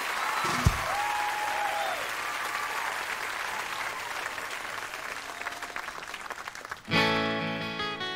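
Concert audience applauding and cheering, with a few whistles. About seven seconds in, an acoustic guitar strums in loudly with the opening chords of the next song.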